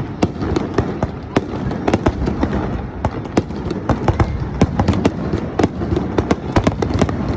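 Fireworks display: a rapid, irregular string of sharp bangs and cracks, several a second, over a continuous low rumble of booms.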